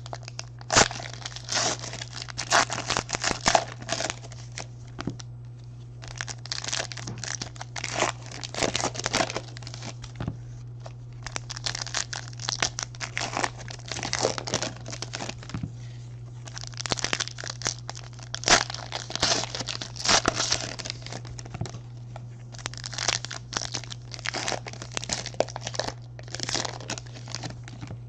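Foil trading-card pack wrappers being torn open and crinkled by hand, in repeated bursts with short pauses between them, over a steady low electrical hum.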